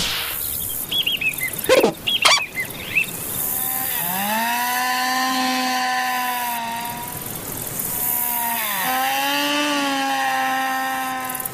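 A cartoon insect in flight, its buzz voiced as a small engine: a steady droning whine that rises in pitch as it starts, holds, sags and breaks off, then starts again a little higher. Before it come a few quick knocks and short warbling chirps.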